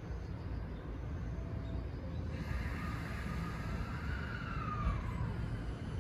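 JR 209 series electric train's traction inverter starting up as the train pulls away: a whine of several tones comes in about two seconds in, one of them falling in pitch, over a steady low rumble.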